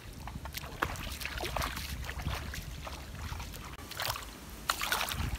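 Bare feet wading through shallow muddy water, sloshing and splashing irregularly, with a cluster of louder splashes about four to five seconds in.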